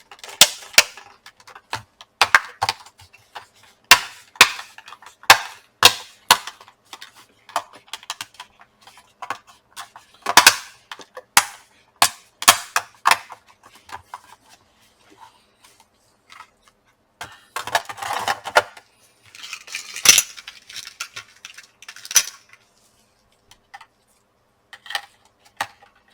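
Plastic back cover of a laptop being pressed onto the base, its clips snapping into place in a string of sharp, irregular clicks. Plastic scraping and rattling as it is handled comes in about two-thirds through, with a few more clicks near the end.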